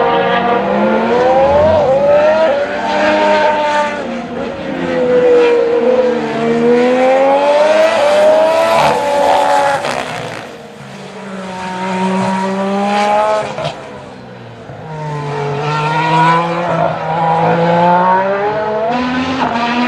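Formula One car engine on track, its pitch climbing in quick steps through upshifts and sweeping down on downshifts as the car passes. The sound drops away twice, about halfway through and again about three quarters of the way in, then picks up again.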